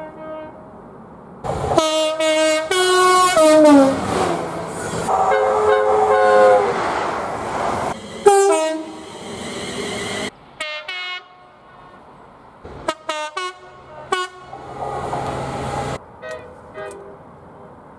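Train horns from several clips cut one after another: multi-tone horn chords sounding in long and short blasts, one sliding down in pitch as a train passes about three to four seconds in, with the noise of passing trains between the blasts.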